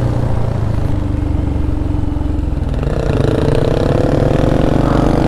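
Motorcycle engine running under way, steady at first, then rising slowly in pitch from about three seconds in as the bike accelerates.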